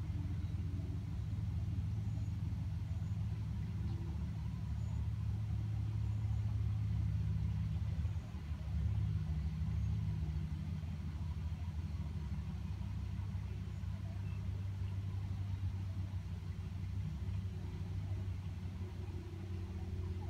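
Outdoor air-conditioner condenser unit giving a steady low hum, with a brief dip in the drone about eight seconds in. The condenser fan stands still, so it adds no whoosh of its own.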